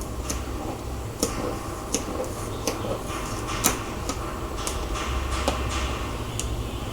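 Tape being peeled off a cardboard box, with irregular sharp crackles and clicks from handling the box. A low steady hum runs underneath.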